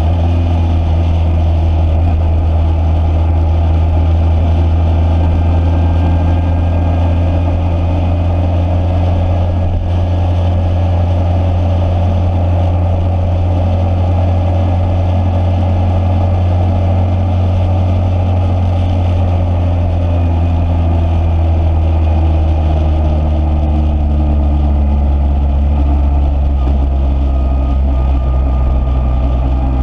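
Motorcycle engine running steadily under way. Its note drops a little about two-thirds of the way through.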